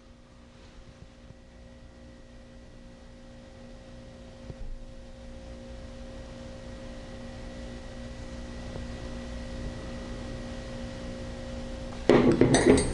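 Steady electrical hum with faint held tones, slowly growing louder, and one light click a little under five seconds in.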